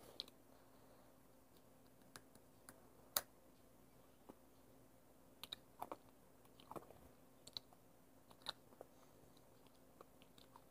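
Faint, scattered crunches and clicks of a chip being bitten and chewed, with one sharper crunch about three seconds in.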